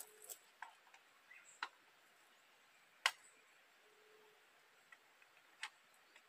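A few scattered sharp clicks and knocks against a quiet background, the loudest about three seconds in and another clear one near the end.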